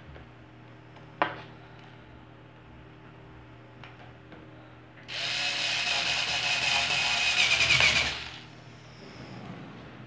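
Cordless power screwdriver running for about three seconds as it drives a screw into a fan's motor housing. It gets louder just before it stops sharply. A single sharp click comes about a second in.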